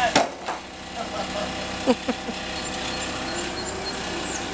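Propane forklift engine running steadily, with a sharp knock just after the start and a couple of short falling pitched sounds about two seconds in.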